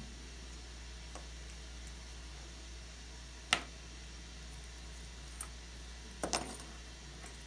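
Small sharp clicks of metal watchmaker's tools handled on the bench while a watch movement is being taken apart: one click about halfway through and a quick cluster of clicks near the end, over a steady low hum.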